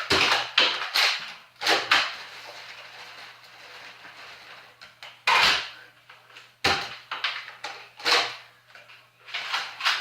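Foam-dart blasters firing and darts striking things during a Nerf battle: a string of sharp clacks and knocks at irregular intervals, several close together at the start and then one every second or so later.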